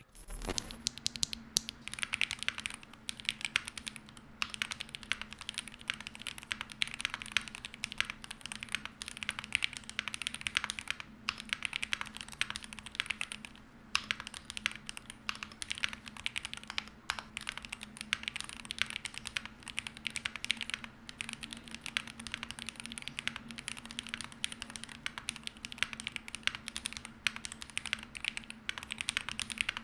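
Continuous fast typing on an Epomaker Magforce68 Hall effect keyboard, its Gateron Magnetic Jade Pro linear switches and PBT cherry-profile keycaps clicking in quick runs with a few short pauses. A faint steady hum sits underneath.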